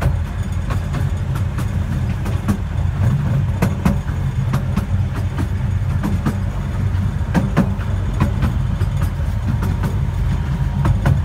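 12-inch gauge miniature railway carriage running along the track: a steady low rumble, with frequent irregular clicks and knocks from the wheels and carriage.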